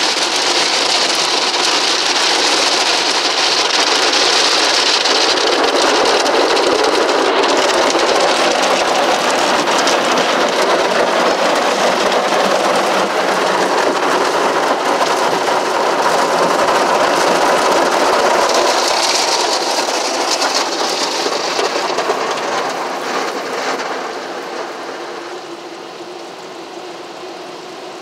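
Ryko Velvet Touch 2000 automatic car wash running over the car, heard from inside the cabin: a loud, steady rain-like rush of water spray and cloth brushes on the glass and body that eases off near the end.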